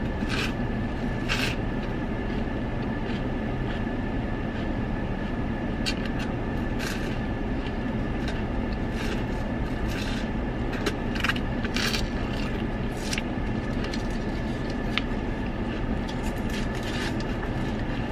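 Steady hum of a parked car's engine running, with the wet licking and smacking of someone eating a soft-serve ice cream cone, short smacks scattered through and most frequent in the middle.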